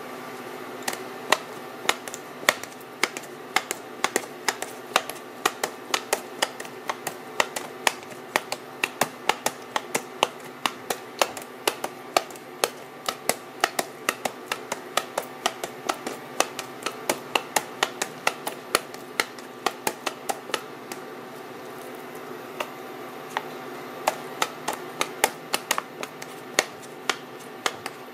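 Spring-loaded bladed meat tenderizer pressed repeatedly into a raw T-bone steak on a plastic cutting board, each stroke giving a sharp click, about two to three a second, with a short pause partway through. A faint steady hum runs underneath.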